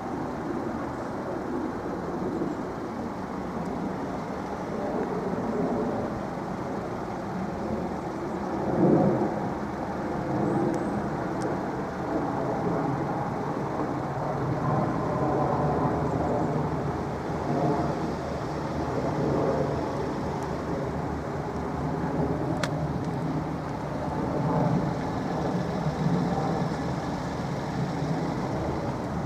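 Road traffic noise from a busy main road: a continuous rumble of car and lorry engines and tyres, with one louder swell about nine seconds in.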